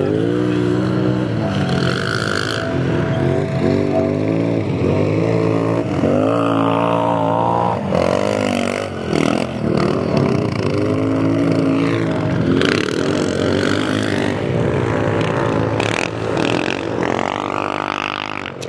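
Utility ATV engines racing, revving up and down over and over as the quads accelerate and back off around a dirt track, with several machines overlapping.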